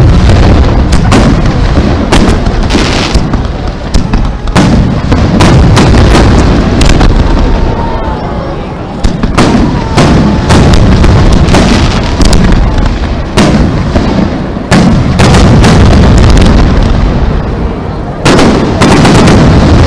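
Aerial firework shells bursting in quick succession: sharp bangs over deep rolling booms, very loud, with a short lull near the end before another cluster of bangs.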